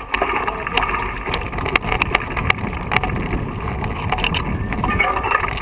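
Mountain bike riding over a loose, rocky trail: tyres crunching over stones, with frequent irregular rattles and knocks from the bike, and wind on the microphone.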